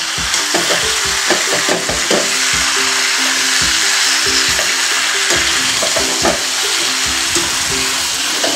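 Drumstick and potato pieces sizzling in oil and masala in a metal kadhai, stirred with a metal slotted spatula that scrapes and clicks against the pan over a steady sizzle.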